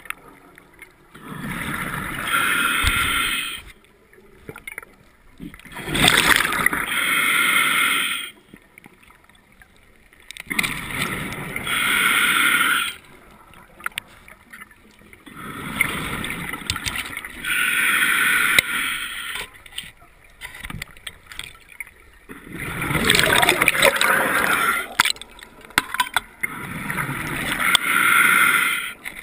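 A scuba diver breathing through a regulator underwater: a hissing breath in and a bubbling breath out, repeating about every four to five seconds.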